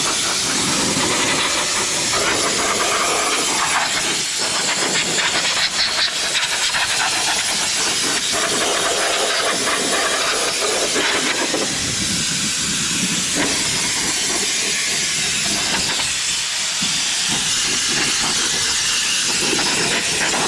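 Compressed-air blow gun on an air hose, blasting a continuous loud hiss of air to blow dust off a tractor's rear hydraulic remote couplers and hitch.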